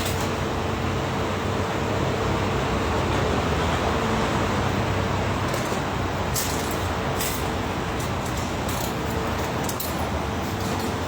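Shin Nippon Koki PC-55V CNC vertical machining center running on a test run: a steady mechanical whir and hiss with a thin hum-like tone that drops out briefly a few times, and a couple of light clicks about two-thirds of the way through.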